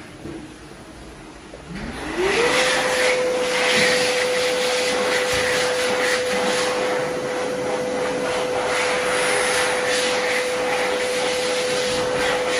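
Velair hand dryer starting up about two seconds in. Its motor whine rises quickly in pitch, then holds one steady tone over the rush of blowing air.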